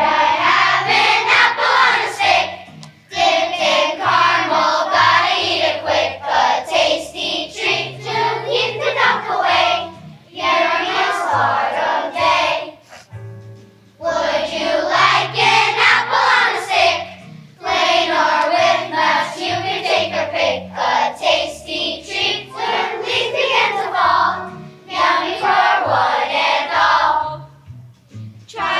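Children's choir singing a song over an instrumental accompaniment, in phrases separated by short breaks.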